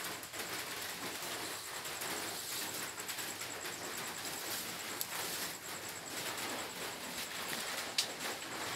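Steady background hiss with a thin, faint high-pitched steady tone, and a sharp click near the end.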